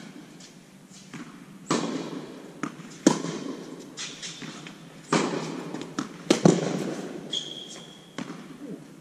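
Tennis rally in an indoor hall: a ball struck by rackets strung with Signum Pro Firestorm string and bouncing on the court, a sharp pop every second or two with an echo after each. A brief high squeak comes a little after seven seconds in.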